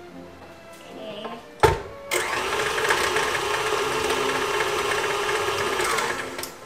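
Electric tilt-head stand mixer switched on about two seconds in, its motor running at a steady speed as it beats eggs into the creamed butter and sugar, then stopping near the end. A single sharp knock comes just before the motor starts.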